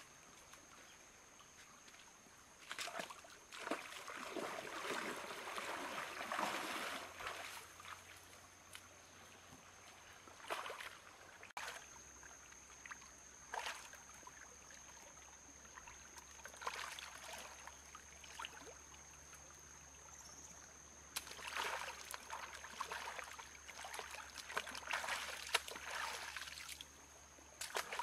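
Water splashing in a shallow stream as a catfish is swished and rinsed by hand, in several bursts of a few seconds each over the gentle flow of the stream.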